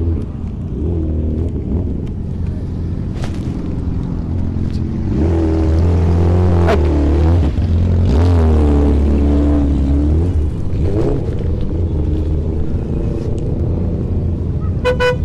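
Motorcycle engines idling and revving in a stopped pack of bikes, a deep rumble that swells louder for several seconds in the middle. A short beep near the end.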